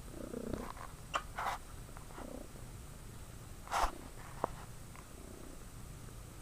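Domestic cat purring steadily close to the microphone, with a few short breathy puffs of noise, the loudest a little before the middle.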